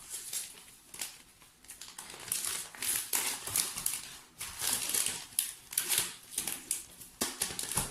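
Plastic packaging crinkling and rustling in irregular handfuls as items are handled, busier from about two seconds in.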